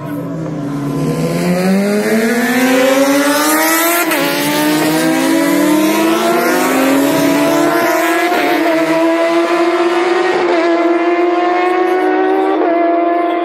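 Racing superbike engines at full throttle, the pitch climbing steadily over the first few seconds and then holding high, with brief steps in pitch about four, eight and a half, ten and a half and twelve and a half seconds in, like gear changes.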